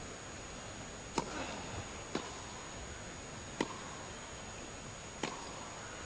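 Tennis rally: a serve and three more shots, each a sharp pop of the ball off a racket, about one to one and a half seconds apart, over a steady background hiss.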